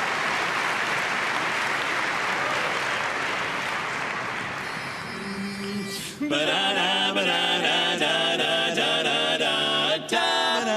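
Audience applause that fades out, a brief single held note about five seconds in, then a male barbershop quartet starting to sing a cappella in close four-part harmony about six seconds in.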